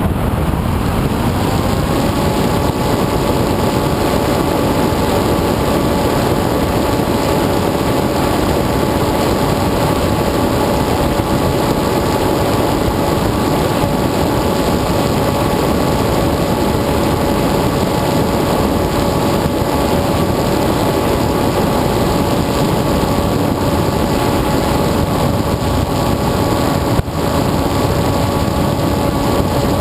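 FPV model aircraft's motor and propeller whining steadily over rushing wind noise, heard from the onboard camera. The whine climbs in pitch in the first couple of seconds as the throttle comes up, then holds steady, with a brief break near the end.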